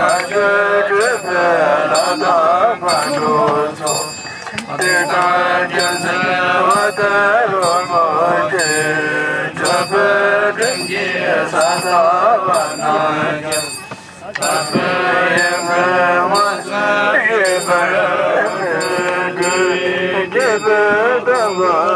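Tibetan Buddhist monks chanting a prayer together, with a steady beat of sharp ringing strikes about three every two seconds; the chant dips briefly around halfway.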